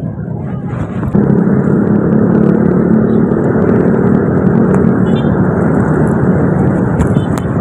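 Engines of a crowd of motor scooters running at a standstill, a steady dense hum that gets louder about a second in and then holds.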